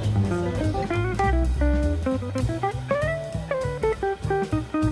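Background music: a plucked guitar melody over a bass line and a drum beat.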